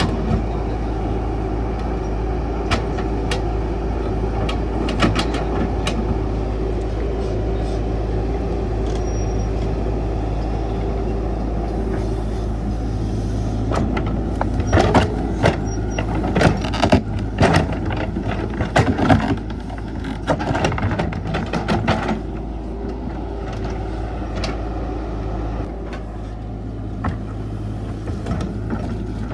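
Caterpillar 312 excavator's diesel engine running steadily under work, with a run of sharp clanks and knocks for several seconds in the middle.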